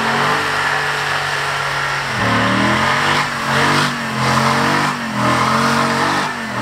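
Off-road truck engine running steadily, then from about two seconds in revving up and falling back about four times in short bursts.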